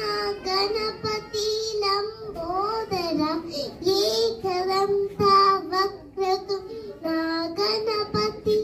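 A young girl singing solo into a handheld microphone, a high child's voice holding and bending notes in short phrases.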